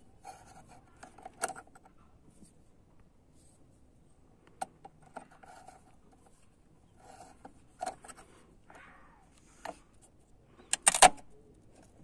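Hex key working the bolts of a BMW E36 door latch striker: scattered small metal clicks and scrapes as the tool turns in the bolt head, with a louder metallic clatter near the end.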